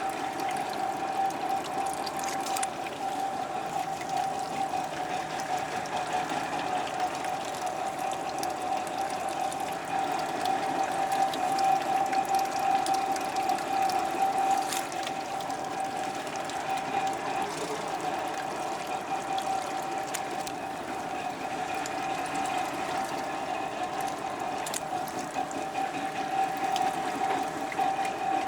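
Fishing boat under way: its engine runs steadily with a constant whine, over the steady rush of water along the hull.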